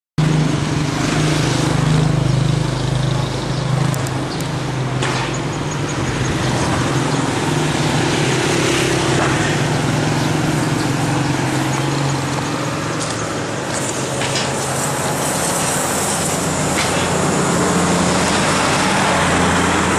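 An engine running steadily, heard as a low hum over loud outdoor noise; the hum weakens about halfway through, and there are a few faint knocks.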